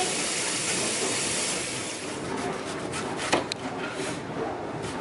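Kitchen knife slicing through a whole onion onto a plastic cutting board: short cutting clicks and scrapes from about two seconds in, with one sharper knock a little after three seconds. Before that, a steady hiss fades out.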